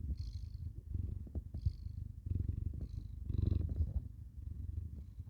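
A sleeping domestic cat snoring: a low, rapidly pulsing rumble, with a soft breath hiss about every second and a half.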